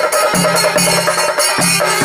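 Kerala chenda melam: an ensemble of chenda drums with ilathalam cymbals playing a steady, loud rhythm of about two strong beats a second.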